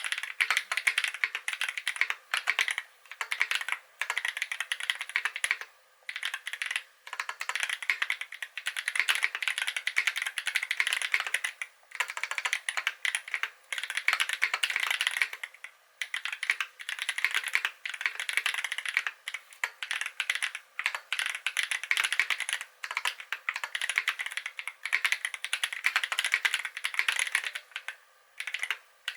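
Steady typing on a KBD8x MKII custom mechanical keyboard with lubed Holy Panda tactile switches on a brass plate: rapid runs of keystroke clacks broken by short pauses every few seconds.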